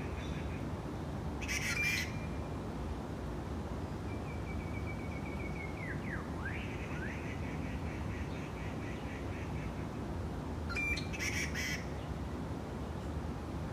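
Birds calling: a harsh squawk about two seconds in and another near the end, with a run of quick high chirping notes and short up-and-down glides between them, over a steady low rumble.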